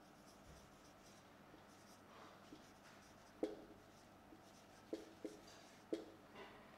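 Marker pen writing on a whiteboard: faint scratching strokes as the letters are drawn, with four short squeaks in the second half.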